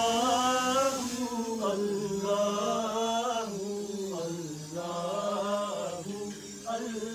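Background vocal music: a single voice chanting in long held notes that bend slowly up and down.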